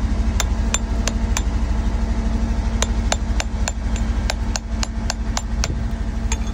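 Rock hammer striking a steel chisel to chip hard rock from around an agate nodule: four sharp metallic taps, a pause, then a run of about ten quicker strikes and one last one near the end. A steady low engine hum runs underneath.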